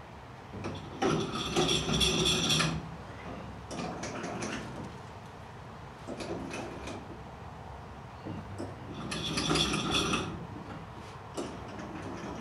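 Rope-and-pulley hoist being hauled in pulls as it lifts a loaded canoe: the pulleys squeak in several bursts of a second or two, the longest about a second in and again near the end.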